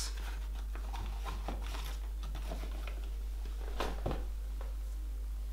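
Handling of a cardboard ice-cream box and a foil-wrapped cone: faint rustles and light knocks, the clearest a pair of soft taps about four seconds in, over a steady low hum.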